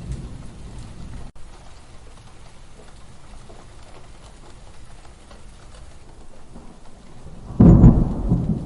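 Steady rain falling while a low thunder rumble dies away in the first second or so. Near the end a sudden loud thunderclap breaks in and rumbles on.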